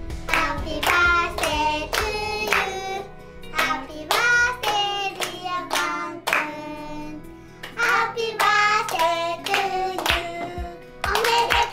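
Family singing a birthday song together, children's voices among them, while clapping in time about twice a second; the singing and clapping stop near the end.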